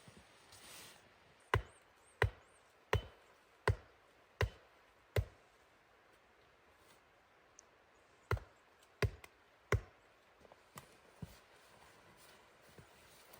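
Wood being chopped: a run of six sharp, evenly spaced strokes, a pause, then three more at the same pace.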